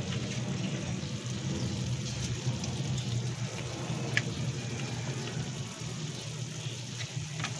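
A wok of green beans and glass noodles simmering in broth on the stove: steady bubbling with a low, even rumble underneath and a few faint small pops.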